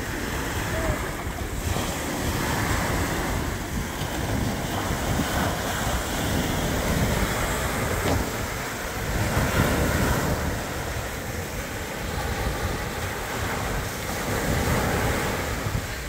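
Small waves breaking and washing up a sandy beach, the surf hiss swelling and easing every few seconds, with wind buffeting the microphone.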